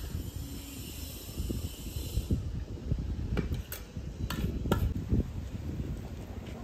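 A few light clinks of a metal spoon against a plate, bunched about three to five seconds in, over a low rumble.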